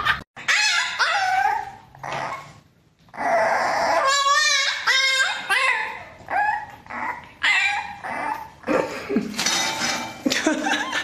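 Dogs vocalising: a Siberian husky gives drawn-out whines that waver and glide up and down in pitch. After a short break about three seconds in, a small puppy whines and yips in a string of short calls.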